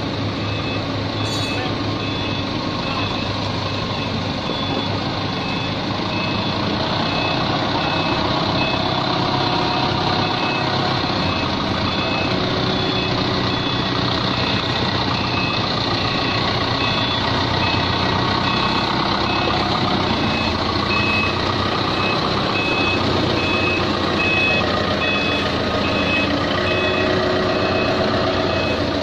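Forklift reversing alarm sounding a single high beep over and over at an even pace, over the steady running of the forklift's engine.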